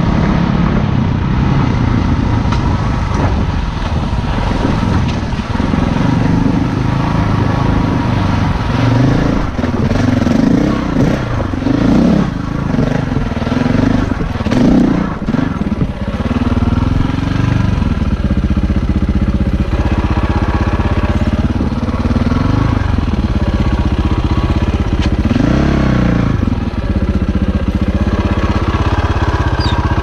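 Dirt bike engine running while riding a rocky trail, its pitch rising and falling with the throttle through the middle and again briefly near the end, with steadier running in between.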